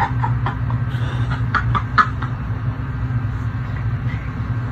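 A steady low hum, with a few short crying breaths and bits of laughter in the first two seconds.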